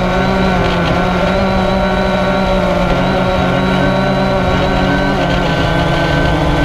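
AirDog follow-me quadcopter's electric motors and propellers running in flight, heard close up from the camera mounted on the drone itself: a steady, loud buzz of several tones held at an even pitch.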